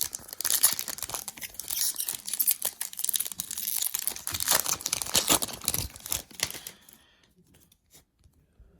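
A trading-card pack's wrapper being torn open and crinkled, a dense crackle for about seven seconds that dies away near the end.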